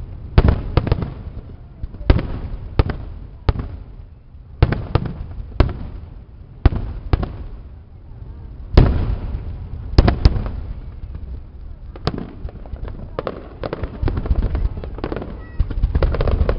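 Fireworks display: aerial shells bursting in sharp bangs about every second, each trailing off in a low echo. Near the end the bangs come thick and fast in a dense crackling barrage.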